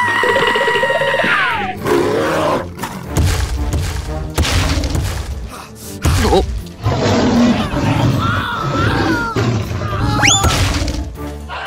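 Background music of an animated cartoon with sound effects: a run of crashes and thuds over a low rumble, and a sharply rising whistle-like glide near the end.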